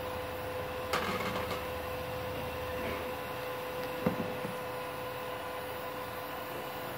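Switched-on Multipro inverter welding machine giving a steady electrical hum with a steady mid-pitched tone. Two short knocks come about one and four seconds in.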